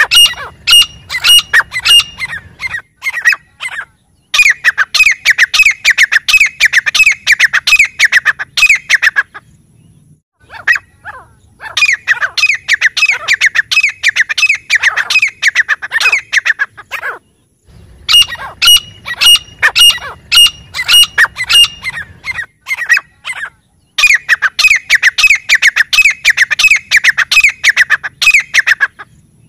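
Grey francolin calling: loud, rapid series of harsh repeated notes in bouts of several seconds, broken by short pauses of about a second.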